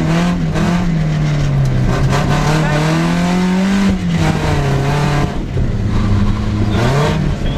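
Rally car engine heard from inside the cabin, revved hard through the gears. The pitch climbs for a couple of seconds, drops sharply about four seconds in, stays low, then climbs again near the end, over steady tyre and road noise.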